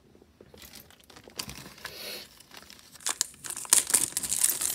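Thin clear plastic bag crinkling as it is handled and opened, starting about a second in and getting louder and busier in the last second and a half.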